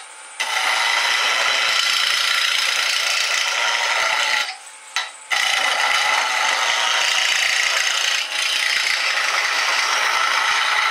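Turning tool cutting a spinning wooden handle blank on a wood lathe, a steady scraping hiss of shavings coming off. The cut breaks off for under a second about four and a half seconds in, then resumes.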